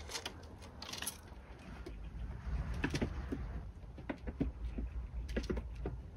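Black squirrel's claws clicking and scratching on a plywood sheet as it moves about, in short scattered taps over a steady low rumble.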